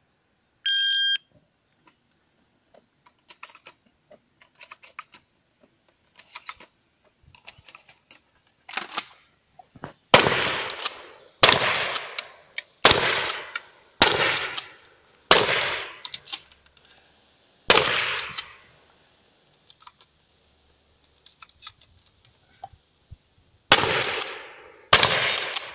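A shot timer's electronic start beep sounds briefly, then a shotgun is fired in rapid succession: about eight loud shots at intervals of just over a second, each with a ringing tail. After a pause of about six seconds with faint clicks, two more shots come near the end.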